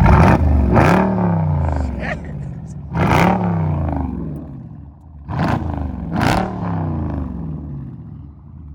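6.4-litre HEMI V8 with a loud aftermarket exhaust, revved hard three times: each blip opens with a sharp crack and the pitch falls back toward idle. It dies down near the end.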